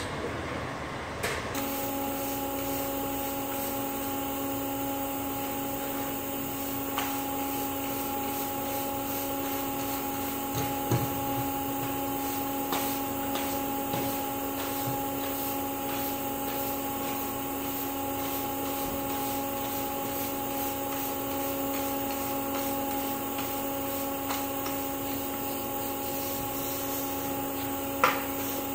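Steady hum of industrial plant machinery, several constant tones held without change. It follows a second or so of rustling as the phone is set down, and a few light knocks come near the end.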